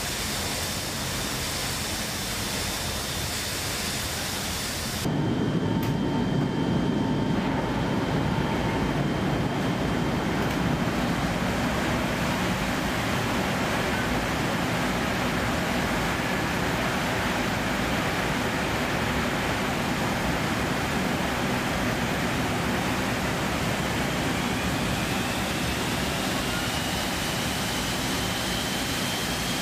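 Steady rush of wind and engine noise inside a C-17 transport's cargo hold with the paratroop doors open in flight. About five seconds in it changes suddenly from a bright hiss to a duller, deeper rumble.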